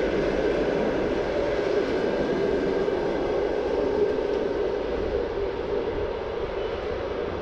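Russian passenger train carriages rolling away over the rails: a steady rumble of wheels on track that slowly fades as the train recedes.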